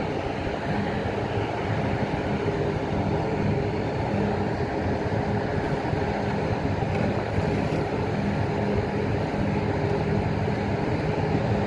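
Steady drone of a boat engine running, with a constant low hum, over wind and sea noise.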